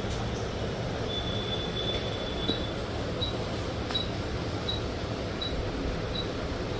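Hot air rework station blowing steadily onto a chip on a phone circuit board, heating it so it can be lifted off. An electronic beeper gives one long tone, then short beeps about every three quarters of a second.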